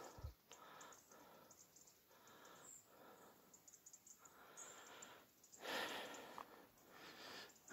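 Near silence, broken by a few faint breaths from the person holding the phone, the clearest one about six seconds in.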